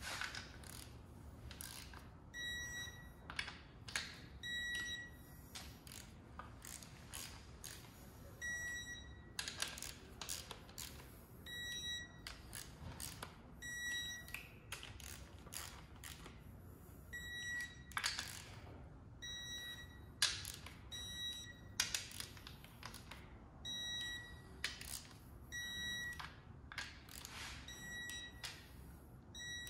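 Digital torque wrench tightening the oil pan bolts on an LT4 engine: about a dozen short, high beeps a second or two apart, each as a bolt reaches its set torque, with ratchet clicks between them.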